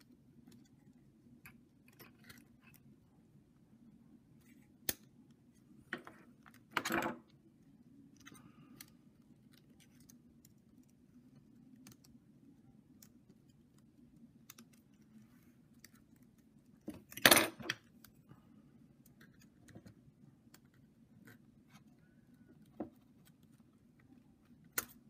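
Sparse small clicks and short scrapes of a hobby knife's metal blade and a thin screwdriver prying at a MacBook Air keycap and its plastic scissor hinge. There is a half-second scrape about a quarter of the way in and the loudest cluster of clicks about two-thirds through, over a faint low hum.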